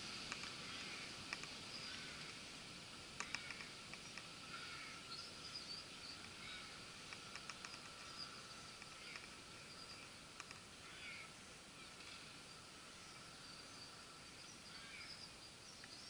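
Faint outdoor ambience with distant birds chirping now and then, and a few sharp soft clicks in the first few seconds.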